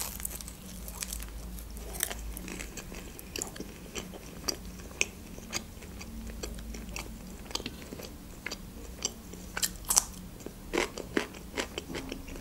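Close-miked eating of a shawarma wrap: a bite near the start, then steady chewing with scattered soft crunches and wet mouth clicks.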